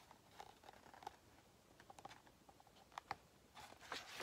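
Near silence with a few faint ticks, then a page of a hardcover picture book being turned near the end, a brief papery rustle.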